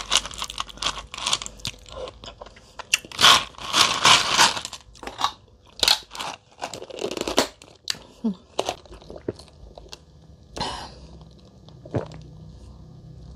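A person chewing a lychee close to the microphone: irregular wet chewing and mouth clicks, busiest about three to five seconds in and sparser afterwards.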